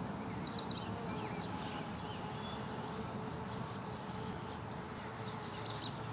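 A songbird gives a quick run of about eight high, downward-sweeping notes in the first second, over a steady background hiss.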